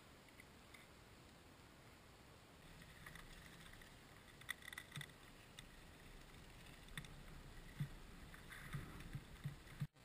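Faint outdoor noise from a frozen lake shore, with a few short, faint gull calls and soft knocks scattered through the second half.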